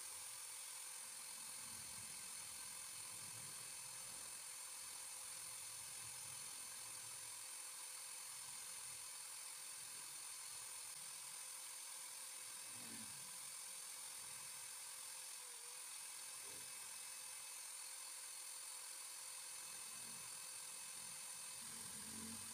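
Electric drill running steadily with a constant whine, spinning a fishing-float body in its chuck while sandpaper is held against it.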